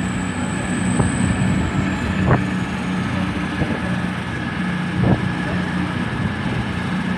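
Class 221 Super Voyager diesel-electric train's underfloor diesel engines running steadily as it prepares to pull out, a steady drone with a high whine that fades away after about two seconds. A few faint knocks come through.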